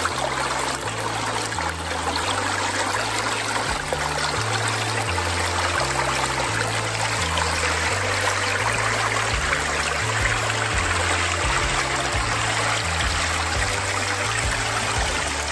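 Small woodland creek trickling and splashing steadily over rocks in shallow cascades, running low. Soft music with a slow stepping bass line plays underneath.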